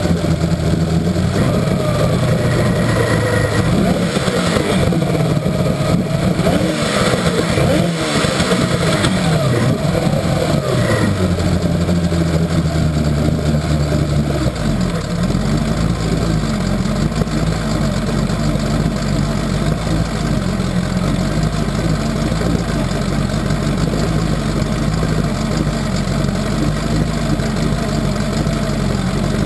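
1964 Evinrude Starflite V4 two-stroke outboard running in a test barrel, its speed rising and falling for the first half, then settling to a lower, steady idle about halfway through.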